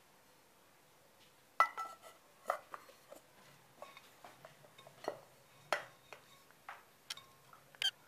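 A metal bowl and terracotta pots being handled, giving a string of knocks and clinks. The first and loudest, about one and a half seconds in, rings briefly.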